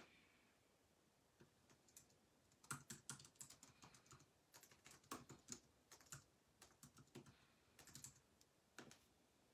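Faint, irregular clicking of typing on a computer keyboard, in quick clusters of keystrokes with short pauses between them.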